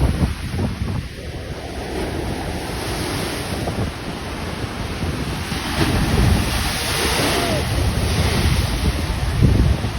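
Rough sea surf breaking and washing up the beach in a storm, with wind buffeting the microphone. A bigger wash of surf swells up about six seconds in.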